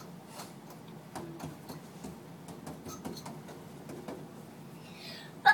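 Key scratching and clicking against a door lock as it is worked, a scatter of faint ticks and small scrapes. A short, louder sharp sound comes right at the end.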